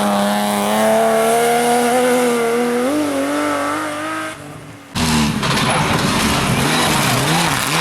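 Rally car engine at full throttle, its pitch climbing steadily, then dropping away about four seconds in. After a brief lull, engine noise cuts in suddenly, the revs rising and falling quickly.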